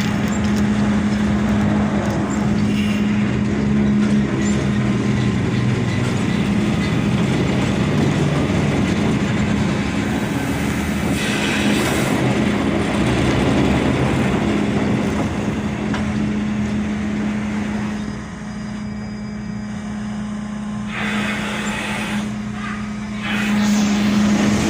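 Ship's machinery running steadily: a constant low hum with a wide mechanical noise over it, easing off for a few seconds about three-quarters of the way through and picking up again near the end.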